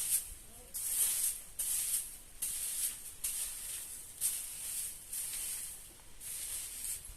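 Broom sweeping the ground in about eight even swishing strokes, roughly one a second.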